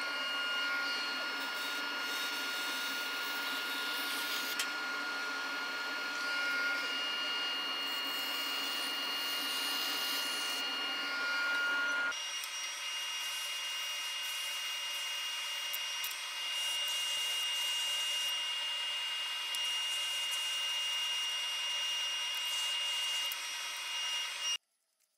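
Bandsaw running, cutting wooden pieces, with a steady whine. About halfway through it gives way abruptly to a spindle sander running as wood is sanded against the spinning drum, with a different steady whine, which cuts off suddenly near the end.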